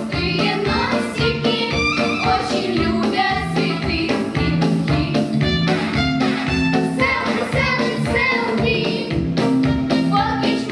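Music with a steady bass beat and singing.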